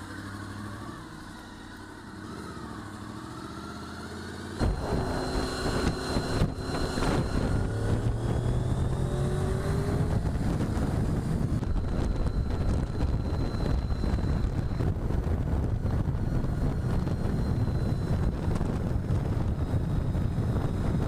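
Motorcycle engine running at idle, then about four and a half seconds in it pulls away, its note rising as it accelerates. After that comes steady riding, with road and wind noise rushing over the microphone.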